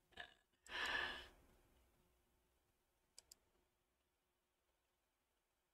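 A breathy sigh lasting under a second, about a second in, then two quick clicks in a row a little after three seconds, likely a computer mouse; otherwise near silence with a faint hum.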